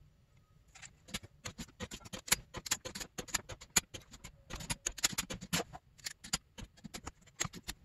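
Torque wrench ratcheting in quick, irregular runs of sharp clicks as cylinder head bolts on a two-stroke twin are run down on the last pass of the tightening sequence.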